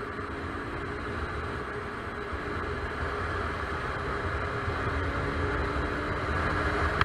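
Motorcycle engine running steadily while riding, under a heavy low rumble of wind on the bike-mounted camera's microphone.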